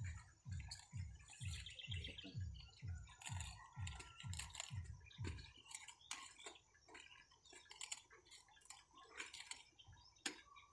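A cauliflower head is trimmed by hand with a knife: crisp leaves rustle, snap and click as they are cut away. A steady run of soft low thumps, about three a second, sounds under it and stops about halfway through.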